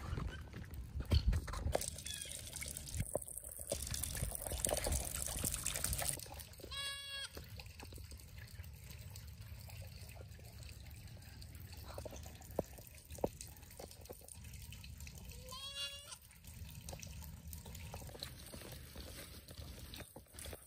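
A goat or sheep bleats twice, each call about a second long, about seven and sixteen seconds in. Louder rustling noise fills the first few seconds.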